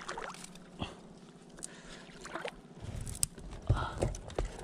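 Shallow water sloshing and splashing as a person steps down into it and wades, with scattered small clicks and snaps of brush. Heavier low splashes and thumps come in the last second and a half.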